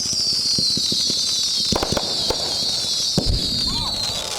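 Aerial fireworks going off: a high, wavering sizzle that slowly falls in pitch throughout, punctuated by several sharp bangs, the loudest about two and three seconds in.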